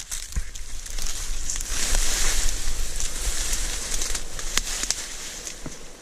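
Dry reeds and tall grass rustling and crackling as someone pushes through them on foot, stalks snapping and brushing past, with many small sharp crackles; it eases off near the end.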